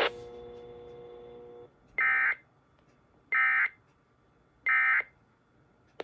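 Sage EAS ENDEC sending the end-of-message (EOM) signal: three short bursts of SAME digital data, each under half a second and a little over a second apart. A faint steady hum runs through the first couple of seconds.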